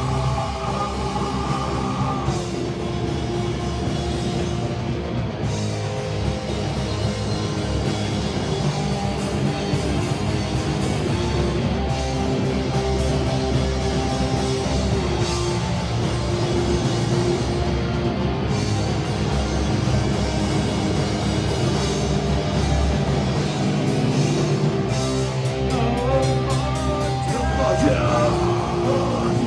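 Live heavy rock band playing a song, with electric guitars and a drum kit.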